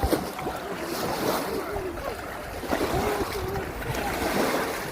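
Reservoir water lapping and splashing, with wind noise on the microphone and faint voices in the distance.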